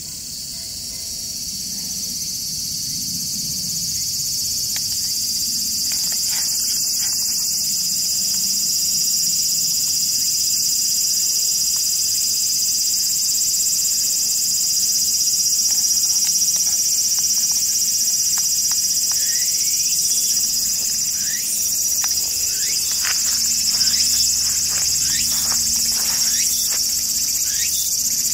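A dense, steady chorus of insects singing high-pitched, swelling over the first few seconds. Short falling chirps join in near the end.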